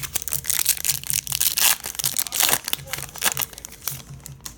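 Foil wrapper of a trading card pack crinkling and tearing as it is ripped open, a dense run of crackles that is loudest in the middle and thins out near the end.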